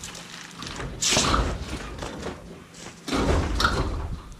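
Styrke Industries 72-inch steel tool chest rolling on its casters across a paved driveway, with two loud stretches of rolling rumble, about a second in and again about three seconds in.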